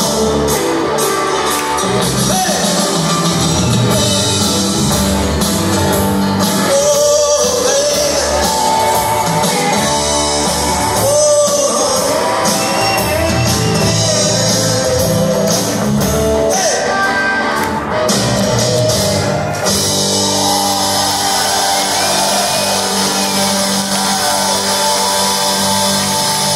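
Rock band playing live in a large hall, electric guitars, bass guitar and drums, with a man singing the lead vocal.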